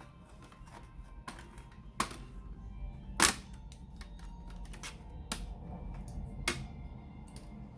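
Background music with scattered sharp clicks and taps from handling a laptop's plastic casing and parts during disassembly, the loudest about three seconds in.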